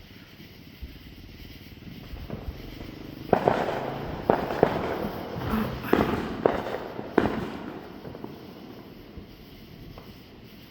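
Fireworks going off nearby: about three seconds in, a rapid string of six or seven sharp bangs with crackling between them, lasting about four seconds before fading out.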